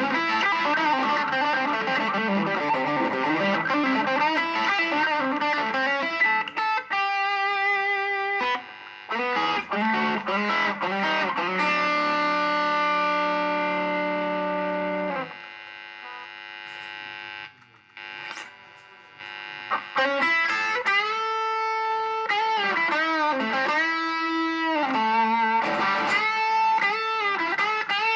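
Home-built Les Paul-style electric guitar played through distortion in lead lines with bent and vibrato notes. About halfway a held chord cuts off, a few quieter seconds follow, and then the lead playing resumes with wide vibrato.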